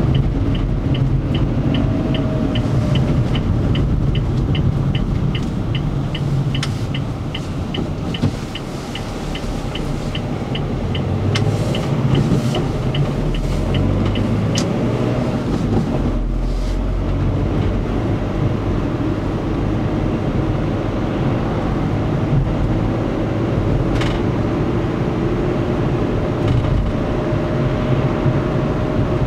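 Car engine and road noise heard inside the cabin, with a turn-signal indicator ticking about three times a second that stops about halfway through. A single sharp click comes near the end.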